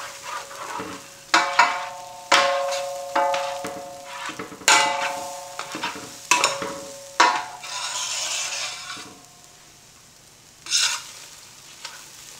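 A metal ladle stirring scrambled eggs in a large metal pan, scraping and knocking against the pan about seven times; each knock leaves the pan ringing for a moment. Under the strikes, the eggs sizzle as they fry in hot oil.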